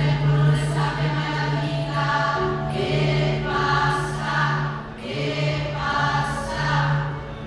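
A choir of women and girls singing a song in held phrases, over a steady low accompaniment.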